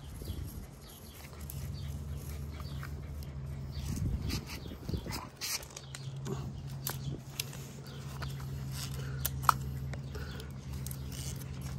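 Screen spline roller pressing rubber spline and fiberglass mesh into a window screen frame's groove: scattered clicks and scrapes with a few short squeaks, over a steady low hum.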